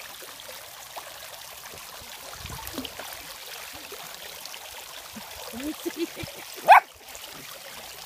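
Tiered garden fountain's water falling and splashing steadily into its basin as a dog paddles in it. Near the end come a few short vocal sounds, then one loud, brief rising squeal.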